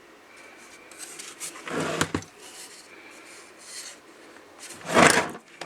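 Handling noises from an old CB radio being moved and examined: rubbing and scraping, a sharp knock about two seconds in, and a louder rushing rub near the end.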